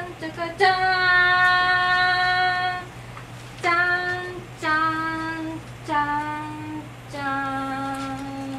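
A woman singing a slow melody without spoken words: one long held note, then three shorter notes each a little lower, ending on a long low note.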